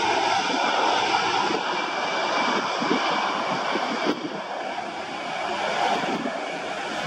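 Twin jet engines of an easyJet Airbus A320-family airliner running at high power as it rolls along the runway: a steady rushing noise with a thin high whine on top. The level drops slightly about four seconds in, as the jet heads away.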